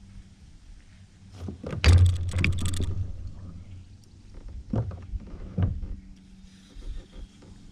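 Knocking and rattling on a kayak hull: a burst of clattering knocks about two seconds in, then two single knocks a little later.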